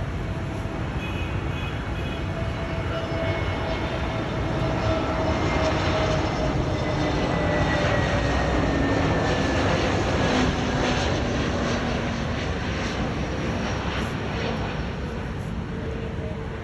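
Airbus A320neo (A320-251N) on landing approach, its CFM LEAP-1A turbofans passing by: a steady jet rumble with a whining tone that slowly falls in pitch, growing louder toward the middle and then easing off.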